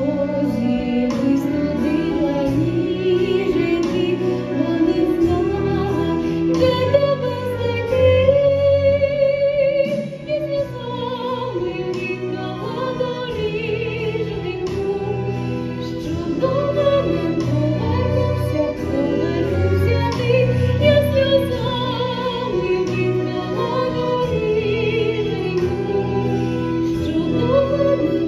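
Operatic-style singing with a wide vibrato over orchestral accompaniment, part of a Ukrainian-language stage musical number; the music dips briefly about ten seconds in.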